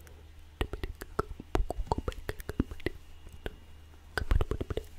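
Inaudible whispering close to a microphone: scattered soft mouth clicks, with a short cluster of louder clicks about four seconds in.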